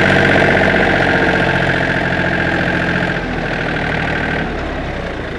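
Yanmar FX265 compact tractor's diesel engine running steadily as the tractor is driven slowly, with a high steady whine over it that stops near the end.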